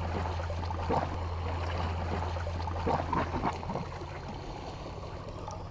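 Sea water lapping and gurgling against the rocks, under a steady low hum, with a few light knocks about a second in and again around three seconds in.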